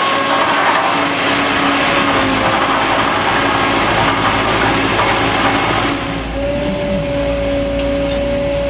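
A machine's engine running steadily with a steady whine over it; the sound shifts suddenly about six seconds in to a deeper rumble with a stronger whine.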